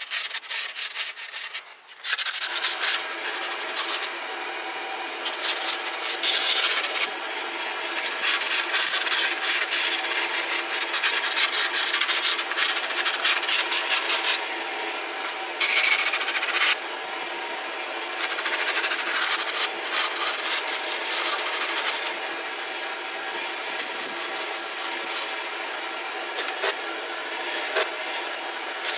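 Coarse emery cloth rubbed by hand in rapid back-and-forth strokes over the metal differential mating flange of a 1994 Toyota 4Runner's rear axle housing, with a short pause about two seconds in. The flange is being sanded clean of old sealant so fresh RTV will stick.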